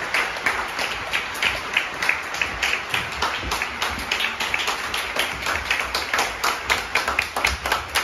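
A handful of people clapping their hands: a quick, steady patter of overlapping claps.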